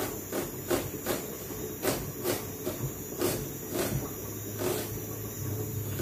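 Chef's knife chopping a white onion into a small dice on a plastic cutting board: a run of quick knife strikes against the board, about two a second and unevenly spaced.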